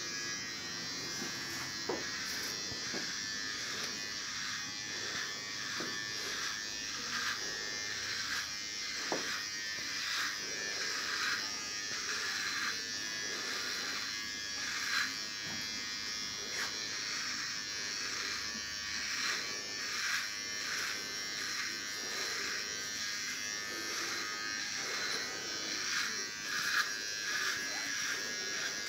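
Electric shaver switched on right at the start, running steadily as it is drawn over a man's beard, with irregular scratchy strokes over the steady buzz.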